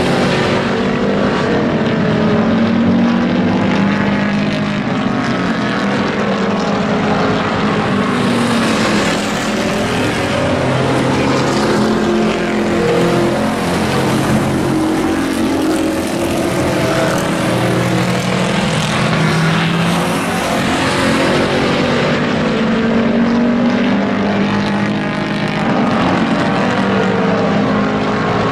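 Several hobby-class pickup race trucks running at racing speed together, their engines overlapping, each pitch rising and falling as they accelerate and lift through the turns.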